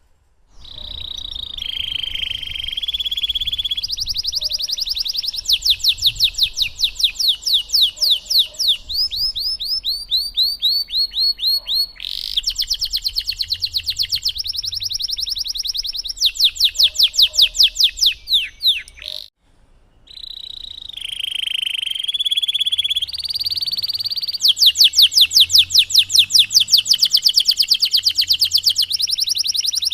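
Domestic canary singing a long, full song: fast rolling trills of rapidly repeated high notes, one phrase after another. The song breaks off for under a second about two-thirds through, then starts again.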